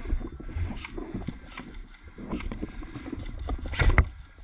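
A player's footsteps and the rustle of gear on the move, with scattered light knocks and one loud sharp knock a little before the end.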